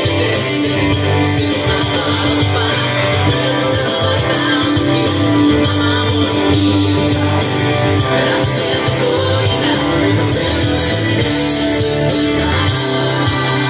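Music: a hollow-body electric guitar played along with a full-band worship-rock backing track with a steady beat.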